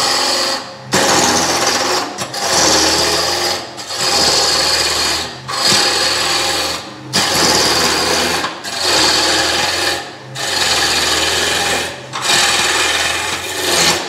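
Wood lathe spinning a square blank while a turning tool cuts into its side in repeated passes, about one every second and a half, each a steady shearing hiss with short breaks between, over the lathe's low hum; the cutting stops near the end. The cut runs smooth, without the ka-chunka of the blank's corners hitting the tool, because cutting from the side acts like cutting long grain.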